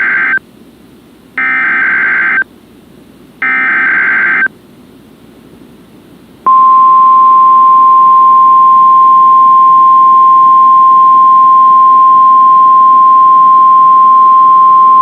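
NOAA Weather Radio Required Weekly Test signal: three short bursts of SAME digital header data, about a second each, followed about six seconds in by the steady 1050 Hz warning alarm tone, which holds unbroken.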